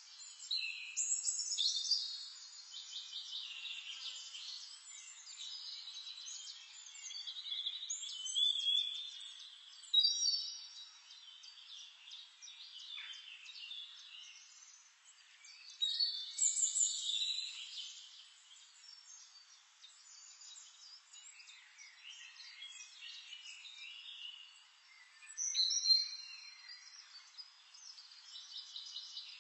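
Songbirds singing, with quick chirping and trilled phrases that come and go, louder bursts several times over.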